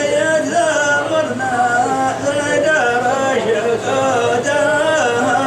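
Male voice singing Hadhrami dan, drawing out a line in long held notes that glide and waver in pitch.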